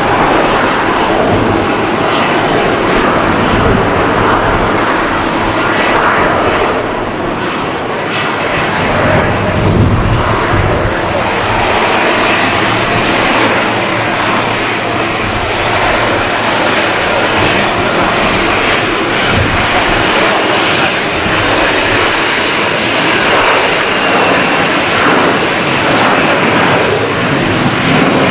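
Jet airliners' engines at takeoff thrust on the runway: an Airbus A321neo on its takeoff roll, then a CFM56-powered Airbus A320 accelerating down the runway toward lift-off. A loud, steady jet noise, with a high thin whine joining about twelve seconds in.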